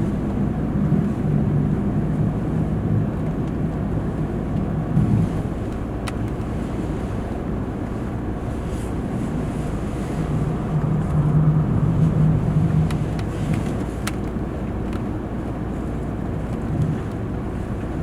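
VW T5 campervan driving, with a steady engine and road hum whose low engine note swells a little about ten seconds in.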